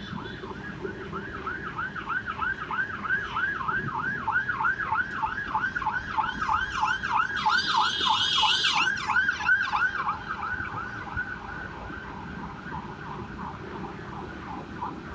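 An emergency vehicle's siren in a fast yelp, rising and falling about three times a second. It grows louder to a peak about eight seconds in, with a brief hiss at its loudest, then fades as it passes.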